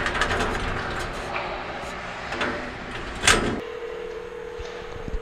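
Rustling and knocks against the thin metal walls of a locker as someone shifts about inside it, with one sharp bang about three seconds in. Then, from about three and a half seconds in, a steady single tone from a mobile phone: the ringing tone of an outgoing call.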